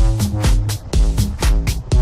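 Background dance music with a steady, fast beat, about four beats a second, over a bass line.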